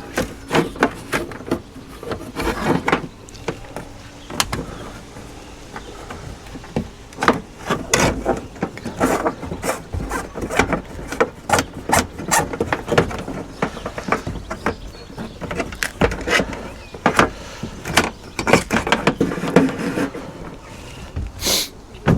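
Handling noise of solar cables being pulled through a roof cable gland on a van: irregular clicks, knocks and rustles, with sharper knocks at uneven intervals.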